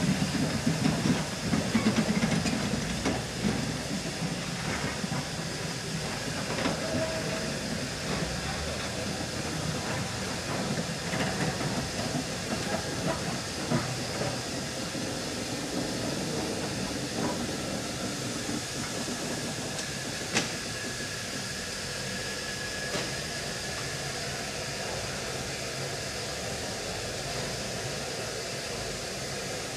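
GNR N2 class tank engine No. 1744 giving off a steady hiss of escaping steam as it moves slowly, bunker first. The hiss carries a lower rumble that is louder in the first few seconds, and there is one sharp click about twenty seconds in.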